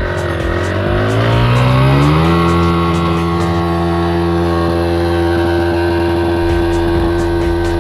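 Bajaj Pulsar NS200's single-cylinder engine revving up over about two seconds, then held at a steady high pitch while the rear tyre spins in loose sand in a burnout.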